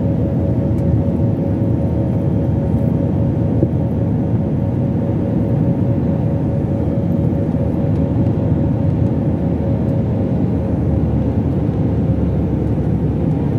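Steady cabin noise of a jet airliner in flight: an even, deep rushing of engines and airflow with a steady hum on top that fades about ten seconds in.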